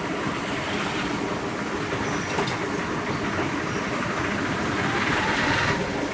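Steady road traffic noise from motorbikes, scooters and other vehicles passing close by, engine rumble and tyre hiss, getting a little louder near the end.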